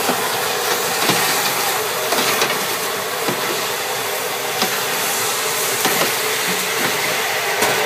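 Popped kettle corn rustling and clicking as it is raked by hand in a steel cooling tray, over a steady hissing roar.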